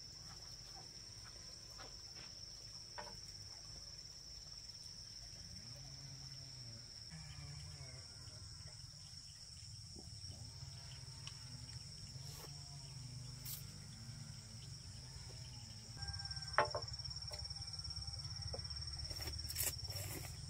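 Insects trilling steadily on one high, even note, with faint wavering animal calls in the middle and a few light clicks near the end.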